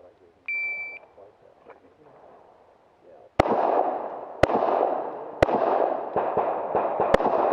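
A shot timer's start beep, one steady high tone about half a second long, then about three seconds later a string of pistol shots: four loud sharp shots roughly a second apart with fainter pops between them, over a continuous noisy wash of echo.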